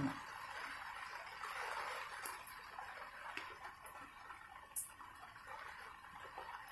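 A scrapbook's paper page being turned and handled: a soft rustle that swells about two seconds in, with a few faint sharp clicks, the loudest near the end.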